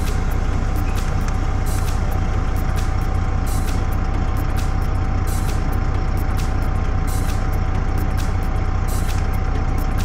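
Freightliner truck's diesel engine idling, heard from inside the cab, with a thin steady high tone over it and irregular small clicks and knocks.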